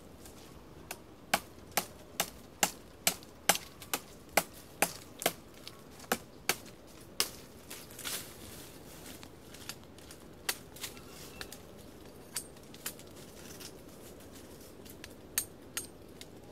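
Machete chopping into a tree branch: a run of sharp strikes, about two a second, for several seconds, then a few scattered strikes later on.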